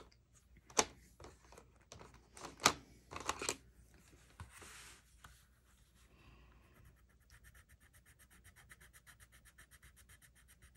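Colored pencil on paper: a few sharp taps and clicks, then a quiet, fast, even scribbling of back-and-forth strokes, about ten a second, as a colour is swatched.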